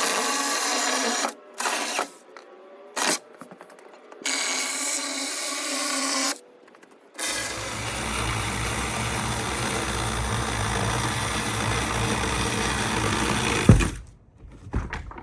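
DINSHARE 4-inch cordless mini chainsaw's electric motor running with a steady whine in several short bursts. A longer, rougher run of about seven seconds follows, with more low rumble, and cuts off suddenly near the end.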